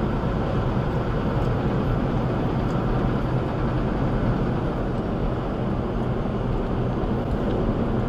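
Steady drone of a semi-truck's engine and tyres at highway speed, heard inside the cab.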